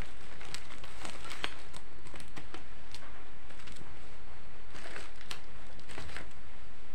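Scattered light clicks and crackles of small objects being handled, over a steady low hum.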